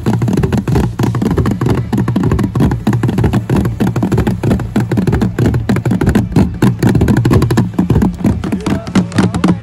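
Wooden xylophones and a hand drum played live in a fast, unbroken rhythm of dense wooden strikes, accompanying a dance.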